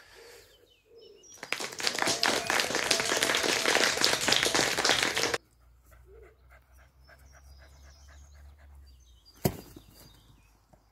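A spaniel-cross dog panting hard close to the microphone for about four seconds, stopping abruptly. Faint bird chirps are heard around it, and there is a single sharp knock near the end.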